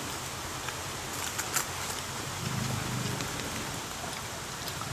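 Chopsticks picking at a crispy deep-fried fish, with a few light clicks about a second and a half in, over a steady background hiss.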